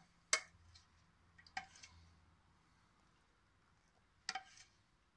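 A few faint, light clicks and taps, three short ones spread over several seconds, as melted butter is spread by hand over pie dough in a metal baking tray.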